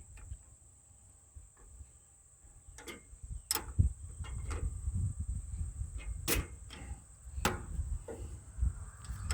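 Scattered sharp clicks and knocks of hand tools and a socket being handled while tightening nuts on a tractor's starter-switch connections, with low rumbling handling noise. The first couple of seconds are quiet, then come a handful of knocks at irregular intervals.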